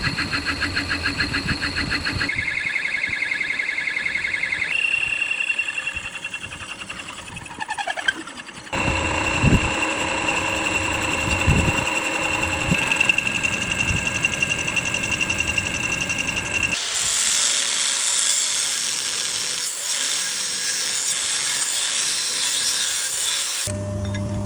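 Metal being machined on a lathe in a run of short edited clips: a cutting whine and rhythmic chatter that change abruptly at each cut.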